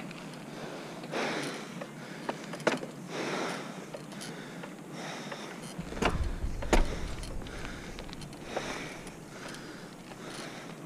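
Bicycle rolling over rough, cracked asphalt, heard from a camera on the rider: steady road noise with scattered clicks and knocks from the bike, and a low rumbling burst about six seconds in.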